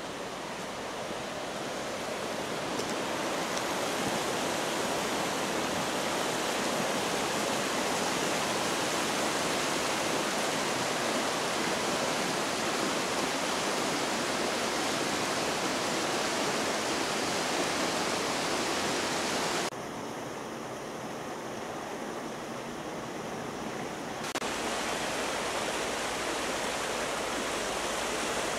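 Shallow mountain river rushing over stones and gravel riffles, a steady rush of water. It swells over the first few seconds, drops abruptly to a quieter rush about 20 seconds in, and comes back up about four seconds later.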